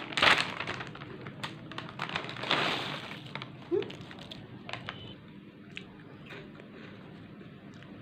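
Crisp crackling and crunching of chips being bitten and their packet handled: a loud crinkly burst at the start and another about two and a half seconds in, then scattered sharp clicks that thin out toward the end.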